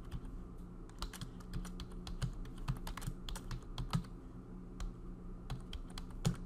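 Typing on a computer keyboard: a run of irregular keystrokes, with one louder key strike near the end.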